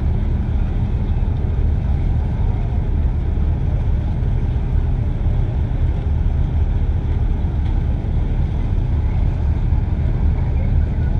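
Ship engines running at the berth: a steady, deep drone with a constant hum and no change in pitch or level.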